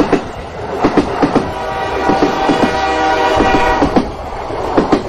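Train sound effect: wheels clacking over the rail joints in an uneven rhythm, with a long horn blast in the middle.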